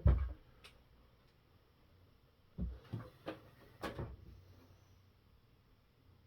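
Light knocks and clunks of an RC rock crawler being handled: one at the start, then a quick cluster of four or five knocks between about two and a half and four seconds in.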